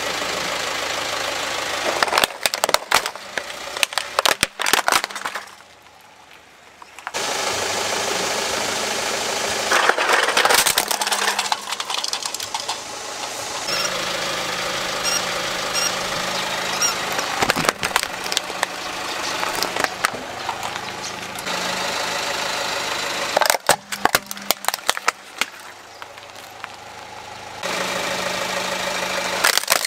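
Car engine idling while its tyre rolls over plastic toys, with several bursts of sharp cracking and snapping as they are crushed. There is a brief quieter gap about six seconds in.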